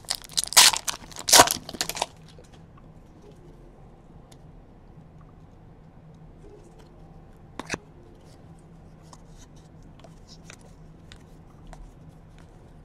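A foil trading-card pack is torn open, crinkling loudly for about two seconds. Then come the soft clicks of cards being flicked through by hand, with one sharper click about halfway.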